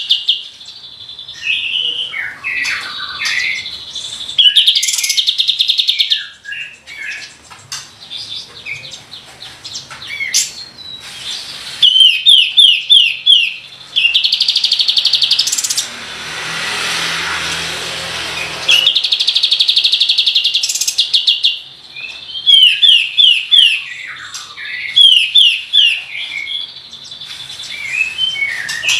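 A kapas tembak singing: loud, fast rolling trills alternating with runs of quick, descending whistled notes. Partway through, a few seconds of hissy noise stand in place of the song.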